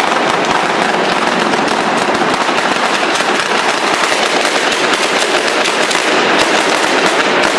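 A string of firecrackers going off in a rapid, unbroken crackle of small bangs.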